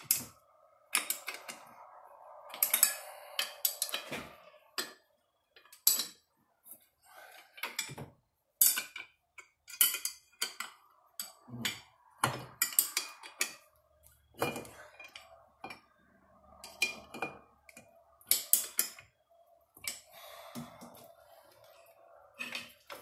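Irregular metallic clinks, knocks and scrapes as a cut-down section of an LS 5.3 V8 engine block is shifted and turned in a lathe's four-jaw chuck, with the lathe not running.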